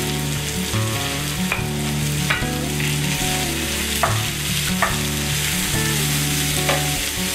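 Chopped onions sizzling as they fry in hot oil with spices and a green chilli, garlic and ginger paste, stirred with a wooden spatula in a white-coated frying pan; the spatula scrapes the pan several times.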